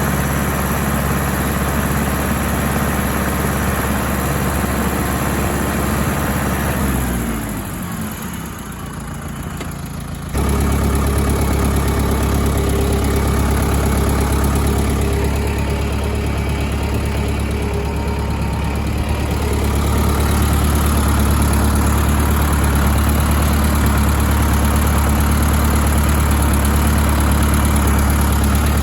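Ford 6640 tractor's diesel engine running steadily. About seven seconds in its pitch falls and it goes quieter, then about ten seconds in it is suddenly loud again and runs on steadily.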